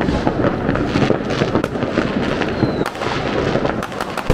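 A dense barrage of New Year's fireworks and firecrackers going off all around: continuous crackling and popping with many bangs. A short whistle comes about two and a half seconds in, and a sharp, loud bang at the very end.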